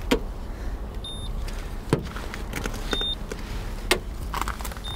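Short high electronic beeps about every two seconds, each coming about a second after a light click against the panel: a paint thickness gauge being set on the car's fender and beeping as it takes each reading, as the inspector checks whether the fender was repainted.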